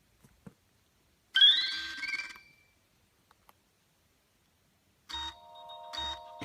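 Nokia 6070 mobile phone sounding tones through its small built-in speaker: a loud, short rising electronic chirp about a second and a half in, then after a pause a ringtone tune of steady electronic notes starts about five seconds in, several notes sounding together. Faint keypad clicks come in between.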